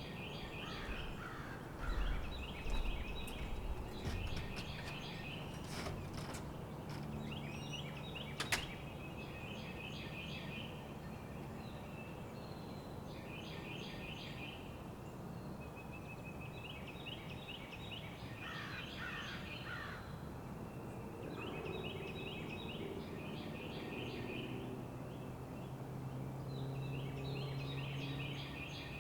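A songbird singing a short, rapid trill over and over, every few seconds, with a lower-pitched bird song now and then, over a steady low rumble. There are a few low thumps in the first few seconds and a sharp click about eight seconds in.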